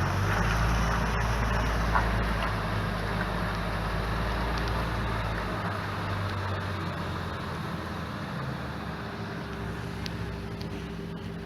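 Diesel engine of a delivery lorry pulling away and driving off. Its low rumble is strong at first, drops off about six seconds in, and the sound fades.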